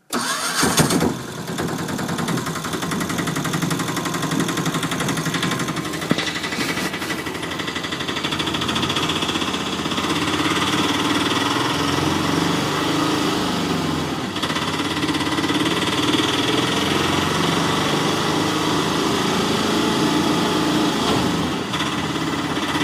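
A vehicle engine running steadily, with a short louder burst about a second in.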